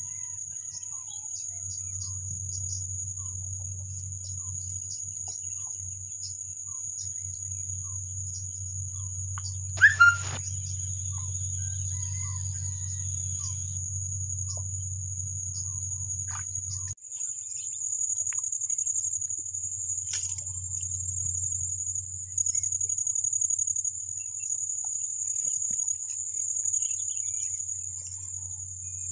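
Insects droning in a single steady high-pitched buzz over a low rumble, with a brief loud sound about ten seconds in.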